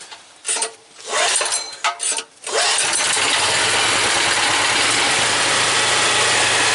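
Bohmer-AG 2700 W petrol generator being started. A few short bursts of noise come first, then the engine catches about two and a half seconds in and settles into a steady, even run with a low hum.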